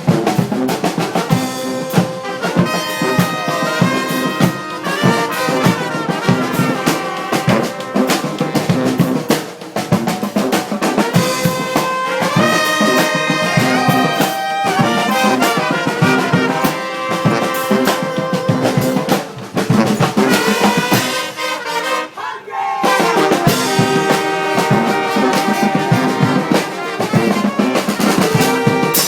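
Marching brass band playing live: trumpets and trombones over a driving drum beat. About three quarters of the way through, the band breaks off for a moment, then comes back in.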